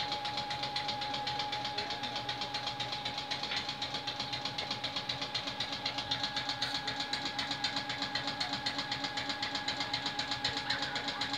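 CM38 piston air compressor of an EN57 electric multiple unit running, a fast, even chugging beat with a steady high whine alongside.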